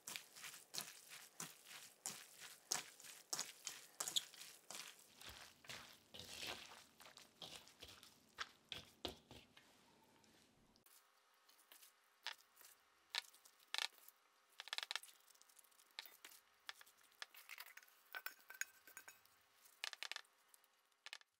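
Gloved hand mixing julienned Korean radish salad in a stainless steel mesh colander: quick, dense rustling and clinking taps. About halfway the sound changes to sparser taps as the salad is pressed down in a glass container.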